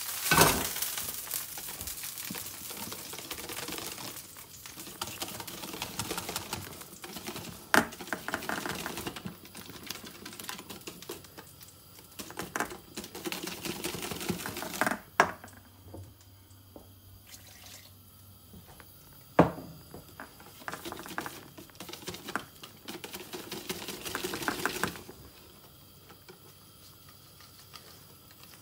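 Wire whisk beating runny pancake batter in a stainless steel bowl: rapid clicking and sloshing, broken by a few sharp knocks and by quieter pauses.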